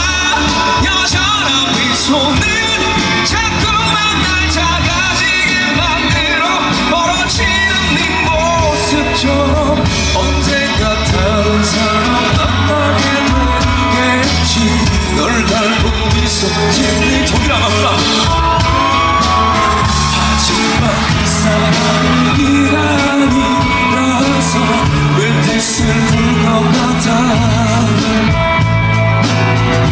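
Live rock band performance: a male lead singer belting over a band with a steady, driving beat.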